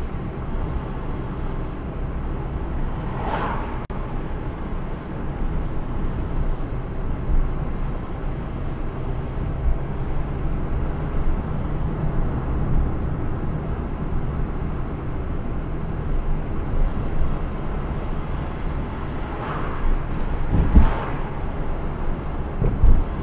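Car driving along a road: a steady low rumble of engine and tyre noise. There is a brief swell of noise about three seconds in and another near the end, with a couple of low bumps near the end.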